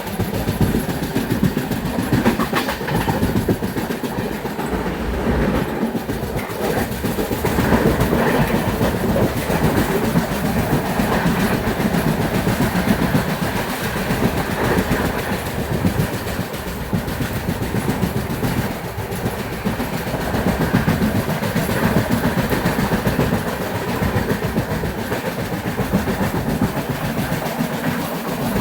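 A train running along the track: a steady noise of wheels on the rails that goes on without a break.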